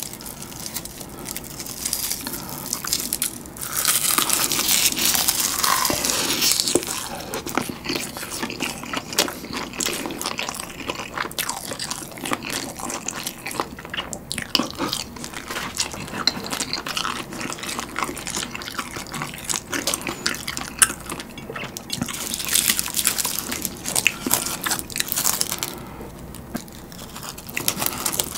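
Close-miked eating of noodles wrapped in dry, unseasoned laver (gim): a crisp crunching and crackling burst about four seconds in as the wrap is bitten, then a long stretch of wet chewing and mouth clicks. Another burst of dry crackling comes about twenty-two seconds in.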